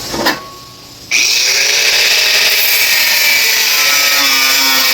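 Cutoff wheel starting about a second in and cutting into the corner of a bent sheet-metal box: a steady, high grinding hiss. It trims the corner where the bent edges don't quite come together.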